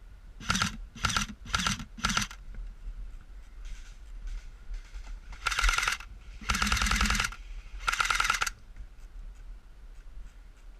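Airsoft gun firing on full auto: four short bursts in quick succession, then three longer bursts of rapid clicking shots a few seconds later.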